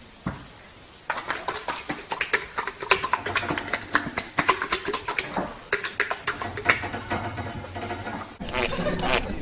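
An animal making a rapid run of short, sharp chattering calls, starting about a second in; the recording changes near the end.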